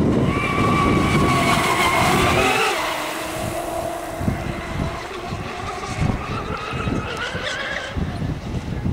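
Twin brushless electric motors of a large radio-controlled racing boat whining at speed, over the rush of water and spray. The whine drops in pitch a couple of seconds in as the throttle eases through a turn, then climbs steadily again and cuts off near the end.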